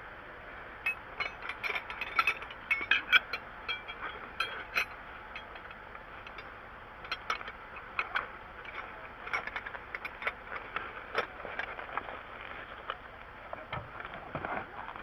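Ratcheting hand tool clicking in quick irregular bursts during a roadside tire change. The clicks are densest in the first few seconds and more scattered after, over a steady background hum.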